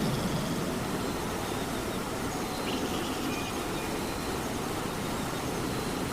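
Steady rain with cats snoring softly underneath, their slow breaths rising and falling in the low range.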